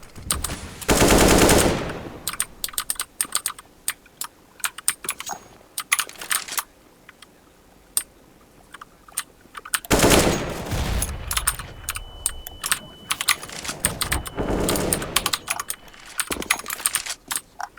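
Mechanical keyboard with clicky blue switches being typed on hard and fast: a rapid rattle of sharp key clicks, with dense loud flurries of key-mashing about a second in, around ten seconds and again around fifteen seconds.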